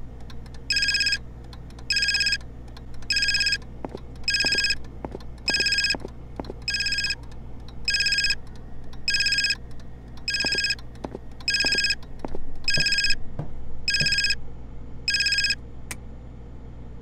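Mobile phone ringing with a trilled, old-style telephone-bell ringtone, one short ring about every 1.2 s, about a dozen rings, stopping near the end.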